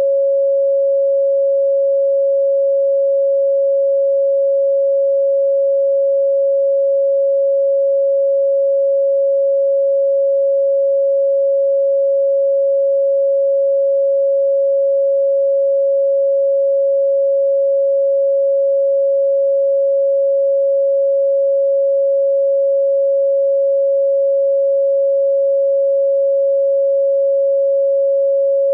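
Loud, steady pure sine tone at about 552 Hz, the 551.994 Hz frequency given for the herb Bai Qian, with a much fainter high, thin tone above it. Neither tone changes.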